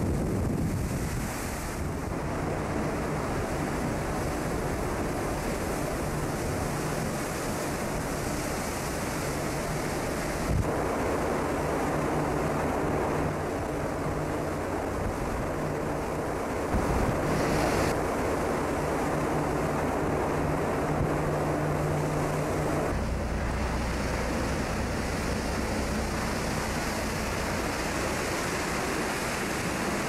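Heavy seas crashing against and washing over a cargo ship's deck, with strong wind buffeting the microphone and a low steady hum underneath. The sound changes abruptly a few times, about a third, halfway and three quarters of the way through.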